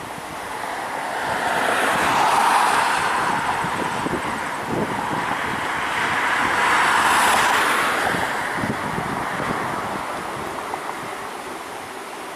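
Bombardier Dash 8 Q400 turboprop on its takeoff roll, a loud rush of propeller and engine noise at takeoff power. It swells twice as the aircraft passes and fades toward the end.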